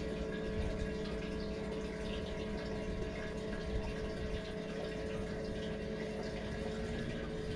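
A small electric pump on the boat humming steadily at a constant pitch, with water running through it.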